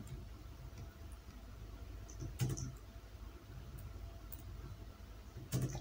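A few scattered keystrokes on a computer keyboard, with a steady low hum beneath.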